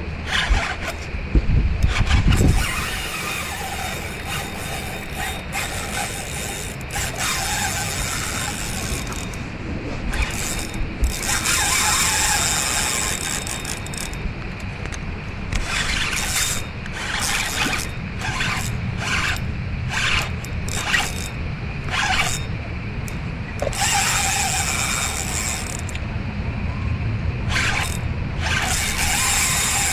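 Fishing reel clicking and ratcheting in repeated short bursts while a big fish is being fought on the line. A loud low rumble about two seconds in.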